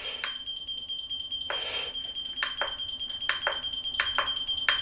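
Steady high-pitched electronic buzzing tone from a just-powered small FPV quadcopter, with a series of light plastic clicks as buttons on FPV goggles are pressed to change the video channel.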